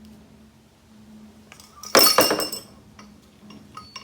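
Metal parts of a dismantled motorcycle fork clattering together: one loud metallic clatter that rings briefly about two seconds in, followed by a few lighter clinks.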